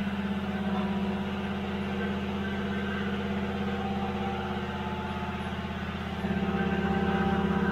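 A motor running steadily with a low, evenly pulsing hum that steps up in loudness about six seconds in.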